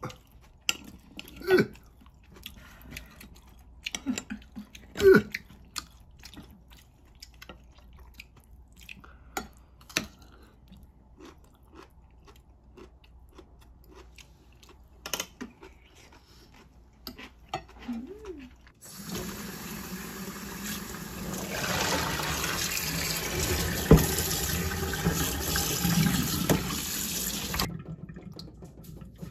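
Eating at the table, with scattered clinks of a metal spoon against a ceramic bowl and chewing. About two-thirds of the way in, a tap starts running into a stainless-steel sink and washing over pork pieces in a bowl; it runs steadily for about eight seconds and then stops.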